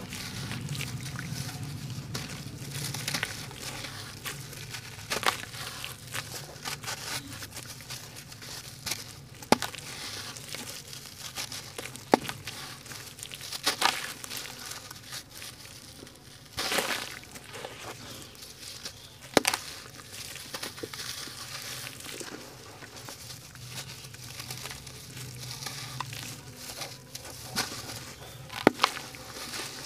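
Hands crumbling lumps of dry sand-cement mix into a shallow pan of water: steady gritty crunching and grit falling into the water, with a handful of sharp cracks as pieces snap off.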